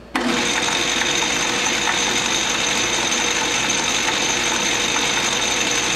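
Small metal lathe switched on, its motor and spindle starting abruptly and then running steadily with a whine.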